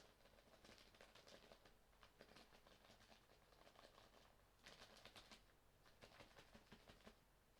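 Faint rustling and light scratching of a cat playing with a cloth towel, in a string of soft clicks and swishes with a busier flurry a little after halfway.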